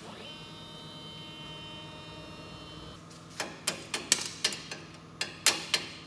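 A steady, high, many-toned whine for about three seconds, then a run of sharp, irregular metallic taps, a few a second, as a small tool is knocked against the freshly plasma-cut steel sheet.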